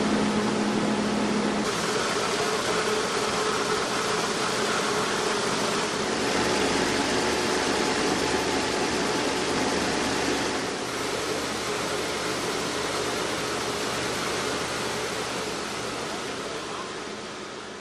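MLNJ20/15 combined rice mill running: a steady mechanical din of motors, fans and grain moving through the machine, with a faint hum under it. It fades out near the end.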